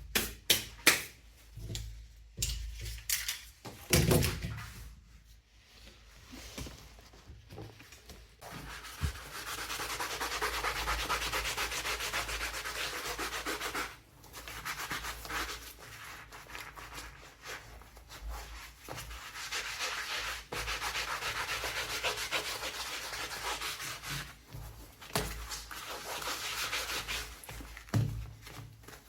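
Leather being sanded or abraded by hand: steady, rapid back-and-forth rubbing strokes in two long spells, preparing the damaged surface. A few knocks and handling noises come first.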